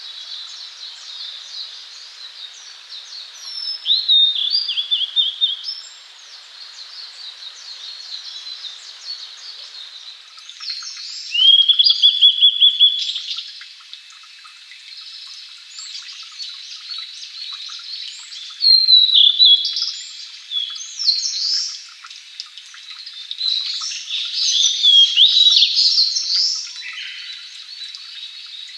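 Male blue-and-white flycatcher singing separate phrases of clear whistled notes a few seconds apart. Some phrases slide downward, and one ends in a flat, buzzy trill.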